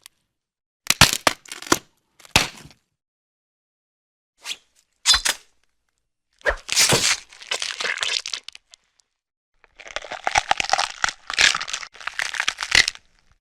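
A run of stock gore sound effects: several short, sharp cracks like bones breaking, separated by silence, then longer stretches of crunching and breaking, the last and densest one near the end.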